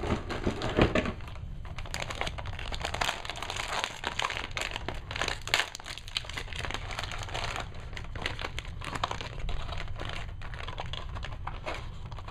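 Foil Heroclix figure pack crinkling and rustling in the hands as it is opened and handled, a steady stream of irregular crackles.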